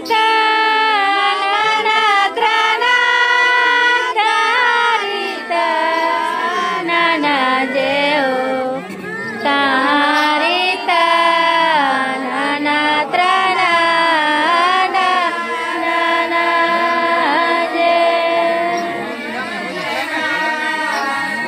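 A group of voices singing a Karam festival song together, with long held notes that slide in pitch.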